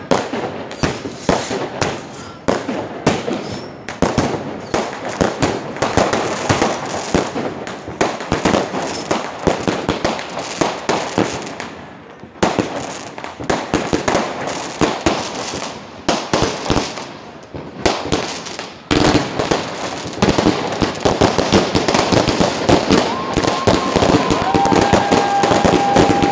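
Fireworks going off in rapid succession: many sharp bangs and crackles, with two brief lulls and a denser barrage toward the end. A few steady high tones join in near the end.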